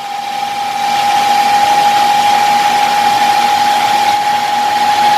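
Hyundai Santa Fe transfer case whining while driving: one steady high whine over a rushing noise that grows louder about a second in. The mechanic traces the noise to the transfer case, to a worn bearing inside it.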